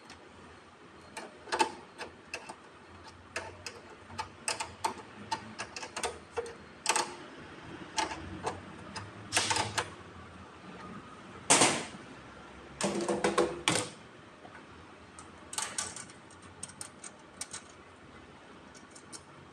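Small spanner and cable lugs clicking against the battery terminal bolts of a hybrid inverter as the battery cables are fastened: irregular light clicks and clinks, with a few longer scraping clusters around the middle.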